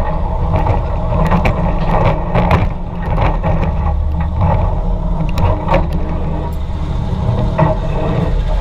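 Spinning roller coaster car running along its steel track: the wheels rumble steadily, with frequent rattles and knocks from the car and track.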